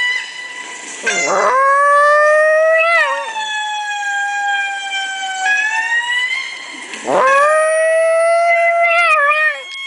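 A Chihuahua howling twice, about a second in and again about seven seconds in. Each howl swoops up into a long high note held for about two seconds. Lemur calls play from a laptop speaker in the gap between the howls.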